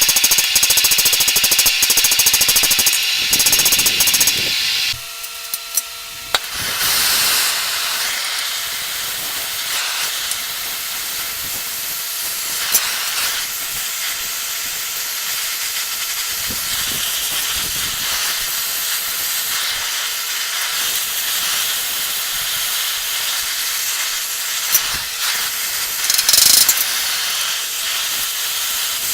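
Upbeat electronic music with drums for about five seconds, then it cuts off, giving way to a steady hiss with a few faint clicks.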